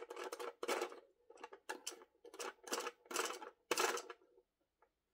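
Irregular plastic clicks and knocks of a toy being handled, about a dozen over four seconds, stopping near the end.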